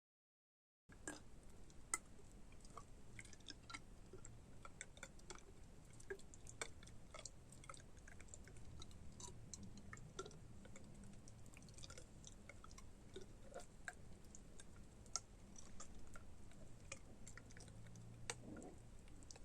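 Faint, irregular small clicks and crackles, several a second, over a low hum; they start suddenly about a second in after dead silence.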